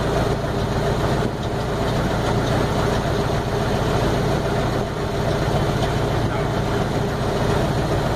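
Small ferry boat's engine running steadily with the boat under way.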